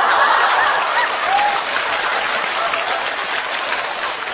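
Studio audience applauding, loudest at the start and slowly dying down.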